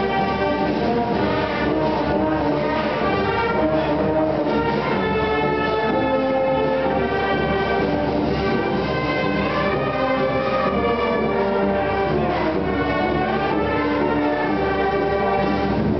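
Italian town wind band (banda musicale), led by brass, playing a piece of held notes and chords.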